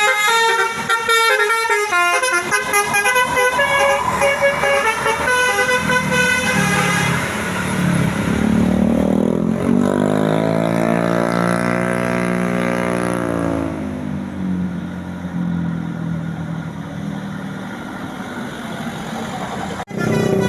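Bus telolet horn playing a quick run of changing musical notes, followed by the bus's engine, its pitch rising and then falling as it goes past, fading into road noise.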